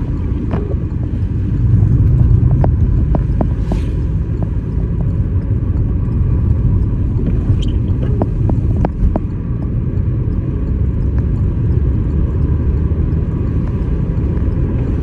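Car driving on the road, heard from inside the cabin: a steady low rumble of tyres and engine, with a few faint light clicks scattered through it.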